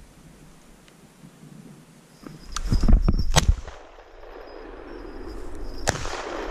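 Shotgun fired at a flushing hazel grouse: a loud burst of sharp cracks about two and a half seconds in, then a single sharper crack near the end.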